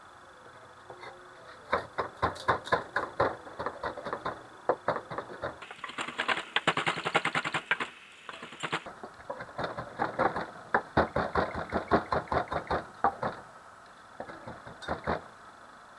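Kitchen knife chopping large red chilies on a wooden cutting board. The blade knocks repeatedly on the wood in uneven strokes, with a fast, dense run of chops in the middle, thinning to a few strokes near the end.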